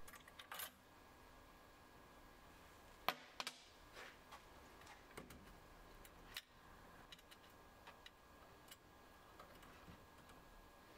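Faint scattered clicks and taps as a 3D printer hotend is worked out of its toolhead mount by hand. The sharpest click comes about three seconds in.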